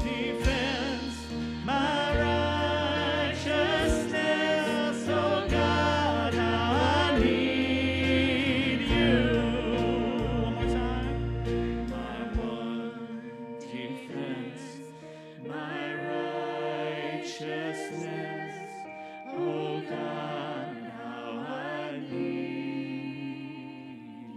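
Church worship band playing a slow praise song: several voices singing together over guitars, keyboard and drums. The low bass drops out about halfway through and the music grows quieter toward the end.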